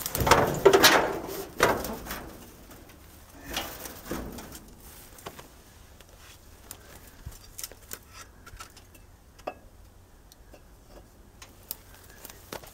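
The steel hood of a rusted Kaiser M715-series military truck creaking on its hinges as it is raised, loudest in the first two seconds and again briefly about four seconds in. Light knocks and clicks of handling in the engine bay follow.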